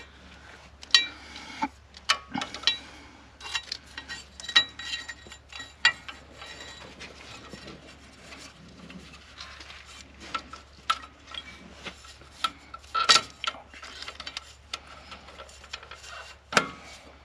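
Irregular metallic clinks, clicks and rubbing as hands route the front wheel's ABS sensor wire and its clips around the hub and steering knuckle, with a few sharper knocks scattered through.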